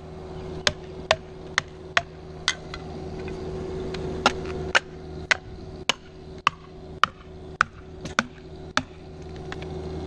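Felling wedges being driven into the cut at the base of a silver maple trunk with a hammer: sharp, repeated metal-on-wedge blows, about two a second with a brief pause midway, to lift the trunk and tip it toward its felling direction.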